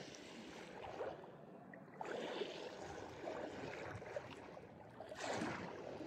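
Faint sea water lapping and sloshing, with a louder wash about five seconds in.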